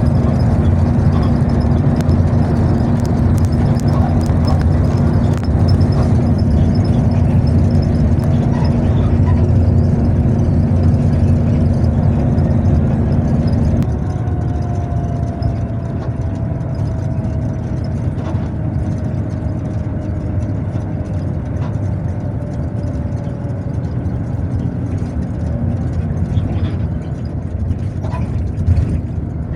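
An excavator's diesel engine runs steadily. About halfway through it settles to a lower, slightly quieter note, and a faint, slowly falling whine rises above the drone for several seconds.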